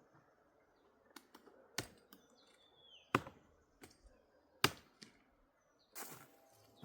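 A handful of sharp, irregular cracks, like dry sticks and twigs snapping, spread over several seconds. A faint, high, falling whistle comes about midway.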